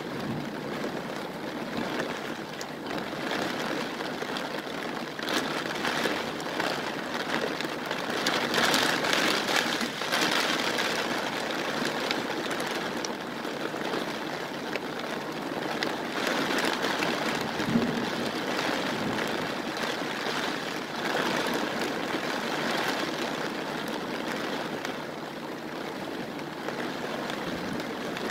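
Heavy rain pouring down, a steady hiss that swells to its loudest about a third of the way in and then eases. A single brief knock comes about two-thirds of the way through.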